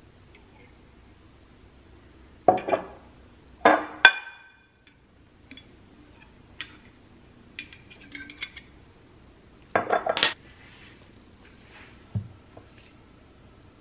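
Glass bottles clinking and knocking against each other and down on a granite countertop while salad dressing is made: a few sharp knocks, one ringing glass clink about four seconds in, lighter ticks, a quick run of clinks about ten seconds in, and a dull knock near the end.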